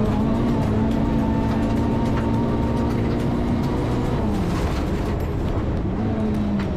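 Rally car engine at high, steady revs, heard from inside the cabin. The revs fall away about four seconds in and climb again near the end, with scattered sharp clicks over the engine sound.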